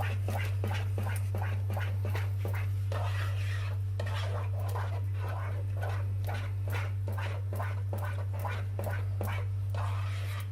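A utensil stirring grated cheese into a thick egg-and-flour sauce in a pot, with rhythmic scraping strokes at about three a second, over a steady low electrical hum.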